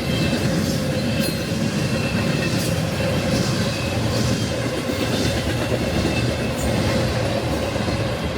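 Freight train rolling past on the mainline: a steady, loud rumble of steel wheels on rail with a steady ringing tone and occasional clicks over the rail joints.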